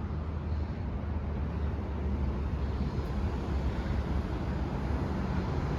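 Steady low rumble of a transit bus engine running.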